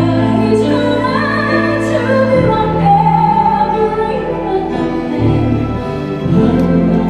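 Live female vocals singing a slow ballad with a band behind them, holding long notes with a high held note about three seconds in.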